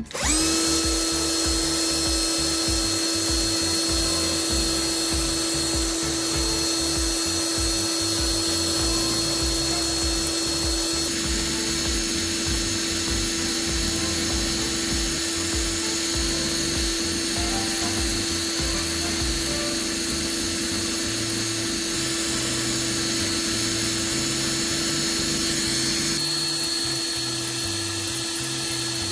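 A small electric motor, like that of a rotary power tool, spins up and runs at a steady, unchanging whine.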